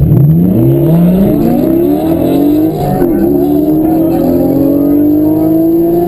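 Porsche 718 4.0-litre flat-six engines accelerating hard from a launch, heard from inside the car's cabin. The pitch climbs steeply, drops at an upshift about three seconds in, then climbs steadily again in the next gear.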